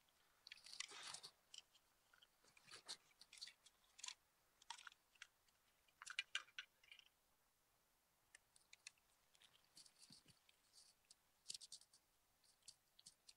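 Faint, irregular crunching and clicking sounds, short scattered crackles with no steady rhythm.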